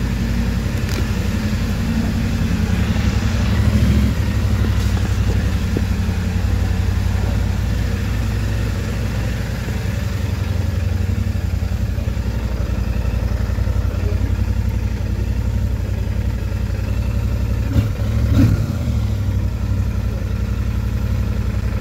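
Royal Enfield Super Meteor 650's parallel-twin engine running steadily at idle through its twin exhausts, with a short rise in revs about four seconds in and a click followed by a brief rev near the end.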